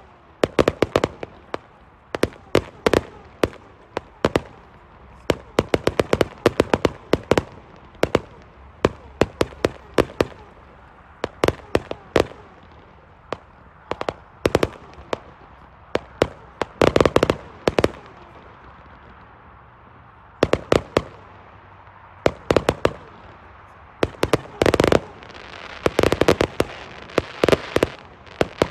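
1.3G display fireworks going off in irregular volleys of sharp bangs every second or two, with a short lull about two-thirds through and a denser, crackling stretch near the end.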